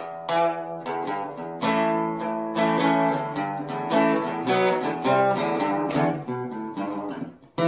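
Instrumental outro music: an acoustic guitar plucking a melody of separate ringing notes, with a brief drop near the end just before a new chord is struck.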